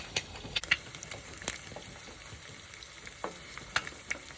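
Eggs frying in a pan: a steady sizzle with scattered sharp pops and spits of hot fat.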